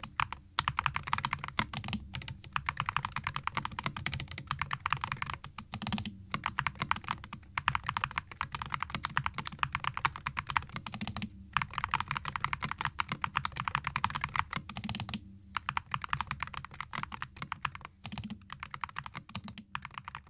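Dry Studio Ice Ring 63 RT keyboard with TTC KOM magnetic switches being typed on fast: a dense run of key clacks, broken by short pauses a few times.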